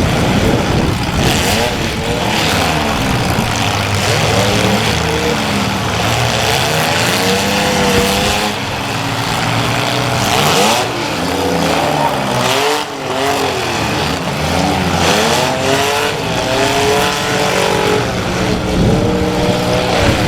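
Several compact demolition-derby cars' engines revving up and down over one another, with now and then a sharp bang of cars hitting.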